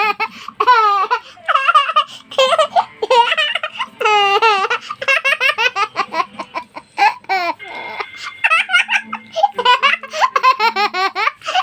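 A young child laughing and squealing in repeated high-pitched bursts.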